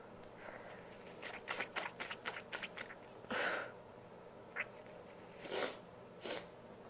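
A woman's nose sounds: a quick run of short sniffing breaths, then one louder nasal burst about three and a half seconds in, and two short nasal puffs near the end.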